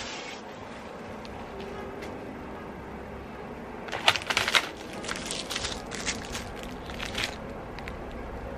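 Thin plastic wrapping crackling as it is handled and torn open. A cluster of sharp crackles comes about four seconds in, then lighter crinkling until about seven seconds.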